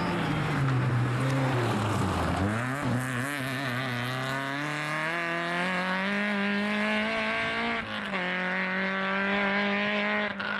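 A rally car's engine, a small hatchback at full effort on a stage. The note falls as the car slows over the first couple of seconds, then climbs steadily as it accelerates away, with a short break in the note about eight seconds in before it runs on.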